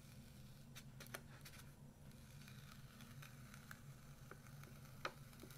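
Adhesive tape being slowly peeled off a paper instruction sheet: faint scattered crackles and ticks over a faint low steady hum.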